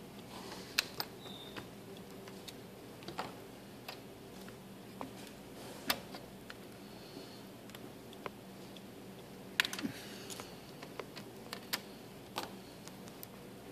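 Irregular light clicks and taps of hands and small tools working on a laptop being taken apart, about a dozen, over a steady low hum.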